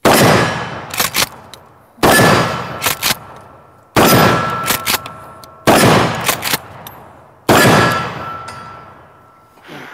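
Remington Tac-14 12-gauge pump shotgun fired five times, about two seconds apart, with 3-inch 00 buckshot. After each shot comes a quick double clack as the pump is worked to chamber the next shell, and a steel target plate rings after the hits.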